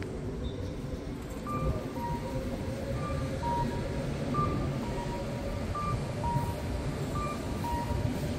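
Electronic two-note pedestrian-crossing signal of the Japanese cuckoo type, a higher beep followed by a lower one, repeating about every second and a half from a second or so in. It signals that the crossing is open to walk. Under it is a steady rumble of street traffic.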